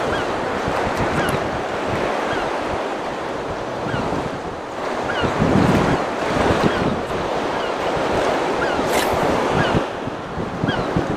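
Choppy sea washing around a small open boat, with wind buffeting the microphone; the wash swells louder for a moment midway through.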